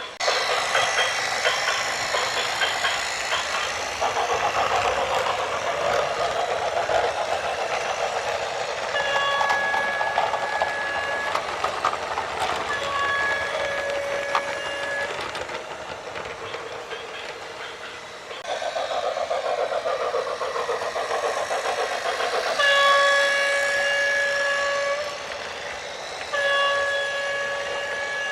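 Loud rattling, rumbling vehicle noise with a horn sounding four times, each blast held about two seconds as a steady chord of several tones.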